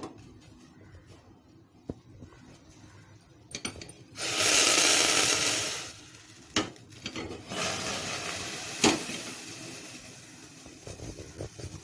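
Cooking sounds at a stove with a kadai heating: a loud hiss lasting about two seconds, then a couple of sharp utensil knocks over a fainter hiss.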